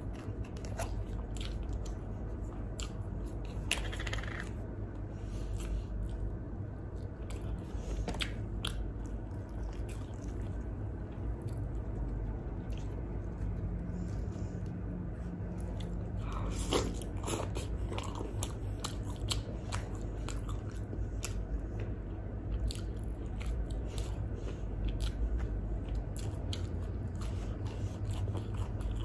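Close-miked eating of grilled chicken: wet chewing and biting with many short mouth clicks and occasional crunches, over a low steady hum.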